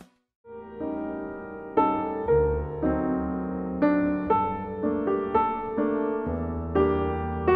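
Slow, soft piano music: single sustained notes over low held bass, after a brief silence at the start.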